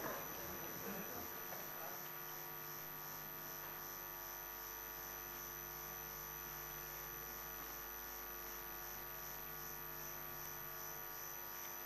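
Faint steady electrical mains hum made of several steady tones, with nothing else standing out.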